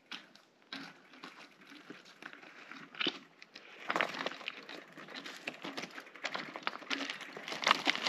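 Footsteps and mountain-bike tyres crunching and clattering over loose stones, irregular crunches that grow louder and busier from about halfway through.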